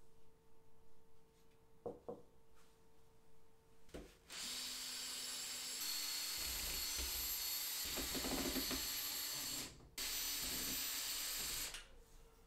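Cordless drill driver backing hinge screws out of a door frame: one long run of the motor with the bit chattering in the screw, a brief stop, then a shorter run. A couple of small clicks come before it.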